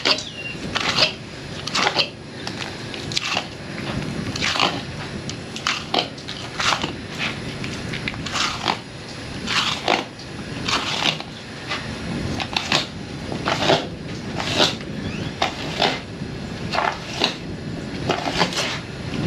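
A blade crunching through the hard, armored scale skin of an alligator gar, in repeated sharp cutting strokes about once a second as the skin is separated from the meat.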